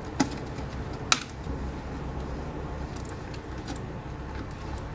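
Small metal clicks and clinks of bolts and a socket wrench as the intake manifold bolts are started by hand. One sharp clink about a second in is the loudest, and fainter ticks follow over a steady low hum.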